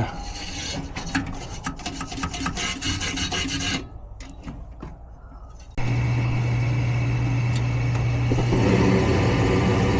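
Scraping and rattling of metal parts being worked by hand on a gas furnace's burner assembly for about four seconds. About six seconds in, a steady low hum starts abruptly and keeps running.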